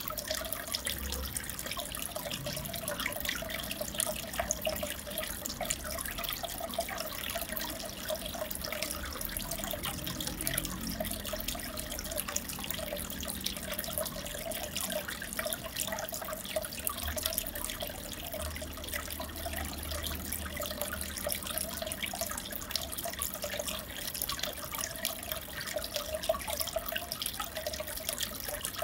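Aquarium water trickling and bubbling steadily, a dense fizz of small splashes that does not change much.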